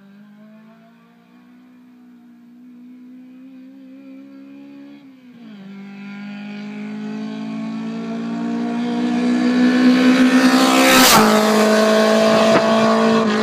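Toyota AE86 Corolla with a 4A-GE 20-valve Silvertop engine on high-compression pistons, accelerating hard toward the microphone. The engine note climbs, drops with an upshift about five seconds in, then climbs again as it grows much louder, with a brief sharp burst of noise at its loudest, about eleven seconds in.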